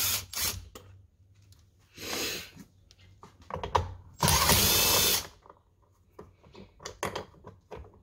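Cordless drill with a socket spinning out the door-panel bolts in short runs: a brief burst about two seconds in and a longer, steady one about four seconds in, with small clicks and rattles of the socket and bolts between them.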